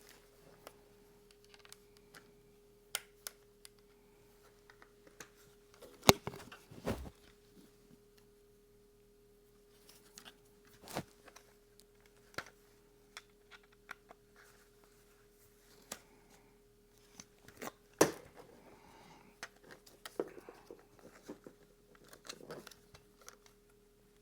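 Scattered clicks, taps and knocks of small bolts, nuts and a hex key being handled and fitted while a holster is bolted to its QLS mounting plate; the two sharpest knocks come about six seconds in and near the middle. A faint steady hum runs underneath.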